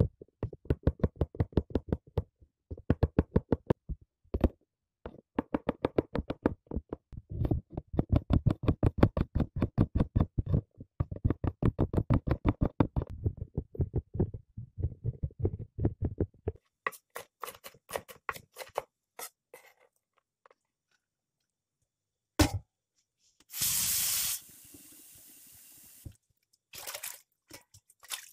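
Kitchen knife chopping garlic and shallots on a bamboo cutting board: rapid strokes, several a second, in runs with short pauses, thinning out after about sixteen seconds. Near the end a single knock and a short hiss.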